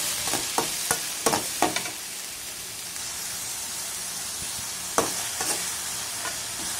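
Turkey berries sizzling as they fry in hot oil in a metal kadai, stirred with a perforated metal ladle that scrapes and clinks against the pan in several strokes over the first two seconds and again about five seconds in.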